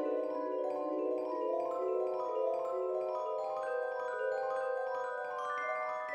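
Background music played on mallet percussion such as marimba or vibraphone, a run of ringing notes that climbs gradually in pitch.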